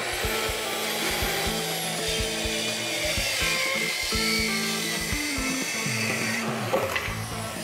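Festool track saw running and cutting through a pine board as it is pushed along its guide rail, with background music over it.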